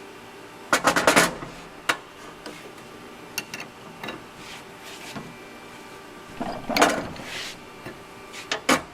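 Metal tooling being handled: short clusters of sharp clanks and rattles about a second in, near seven seconds and again near the end, with a few single clicks between, over a steady shop hum.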